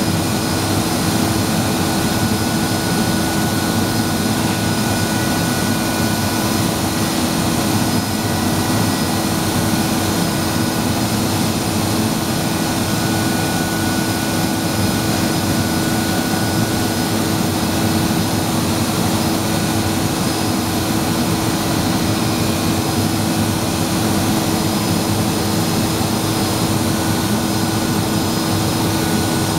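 Blown film machine and its winder running: a steady, even machine hum and rush of noise with a constant low tone, unchanging throughout.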